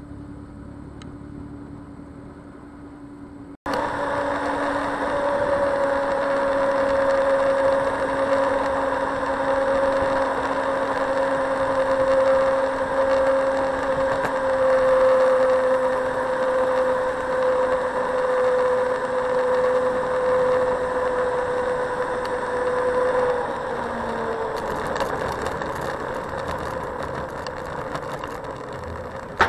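Xiaomi Mijia M365 electric scooter riding along: a steady whine from its hub motor, slowly sinking in pitch, over wind and road noise. The sound jumps abruptly louder about three and a half seconds in. The whine fades a few seconds before the end, where light clicking and rattling come in as the scooter runs onto paving tiles.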